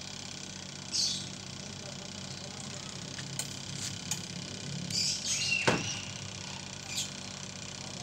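Hands working at a washing machine's control-panel wiring: a few short rustles and three small clicks, with one brief falling whistle-like sweep a little over halfway through.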